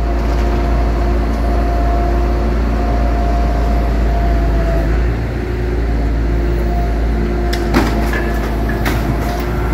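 Crane truck running steadily, a low engine rumble under a held hum from the crane's hydraulics, with a few sharp knocks about eight to nine seconds in.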